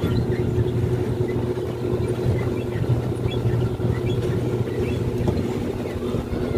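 Theme-park ride car's motor running at a steady speed as the car travels along its guide-rail track, an even hum with rumble underneath.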